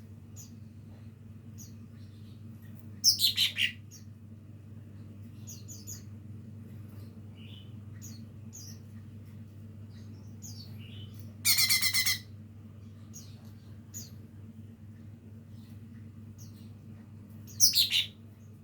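A young cucak ijo mini (lesser green leafbird) practising its song: soft scattered twitters throughout, with three loud short phrases, one about three seconds in, a harsh buzzy one in the middle, and one near the end. A steady low hum runs underneath.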